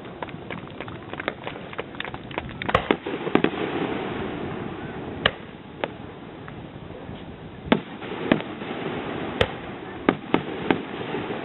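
Fireworks display: a run of quick crackling pops in the first couple of seconds, then a string of sharp bangs from aerial shell bursts at irregular intervals.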